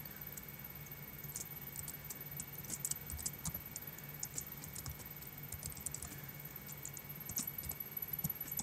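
Computer keyboard typing: scattered keystrokes in small irregular bursts over a steady low hum.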